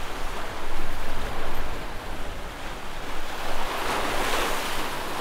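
Ocean surf washing against jetty rocks, a continuous rushing wash that swells loudest about four seconds in as a wave surges through.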